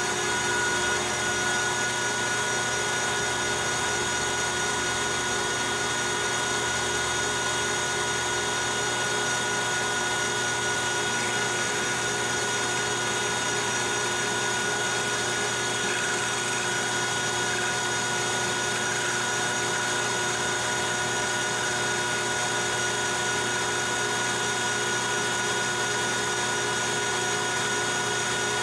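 Metal lathe running steadily while a carbide insert takes light cuts along thin 316 stainless rod, turning a long tapered point. It is a steady machine sound with several whining tones.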